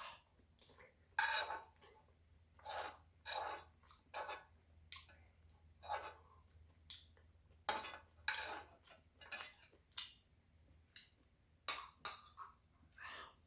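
Close-up eating sounds of someone chewing spicy shrimp tteokbokki, with utensils clinking against the dish. The sounds are short and irregular, coming about once or twice a second.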